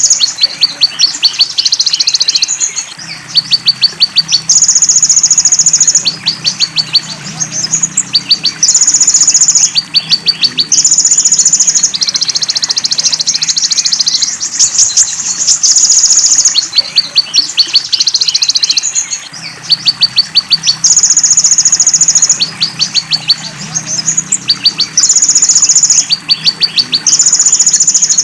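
Looped bird-training (masteran) recording of belalang emas and cililin songs: high-pitched trains of rapid ticks alternate with buzzy notes about a second long, repeating over and over.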